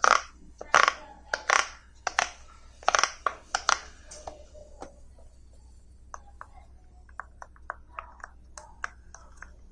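Silicone pop-it fidget toys being handled, with about six loud rubbery slaps and rustles in the first four seconds. From about six seconds in, fingers press the toy's silicone bubbles, giving many quiet, sharp popping clicks at an irregular pace.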